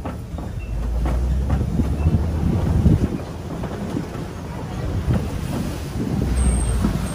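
Open-air safari ride truck driving along: a low rumble with irregular knocks and rattles as it rolls over the bumpy track, and wind buffeting the microphone.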